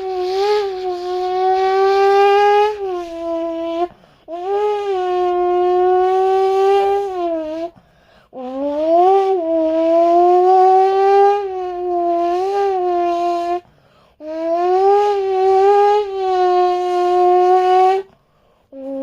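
A person imitating a car engine with the mouth, a buzzing 'vroom' held in four long notes with short breaks between. Each note swoops up in pitch, wavers, and drops at the end, like an engine revving up through the gears.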